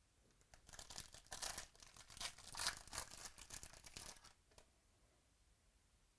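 A trading-card pack's wrapper being torn open and crinkled in the hands, irregular crackling for about four seconds.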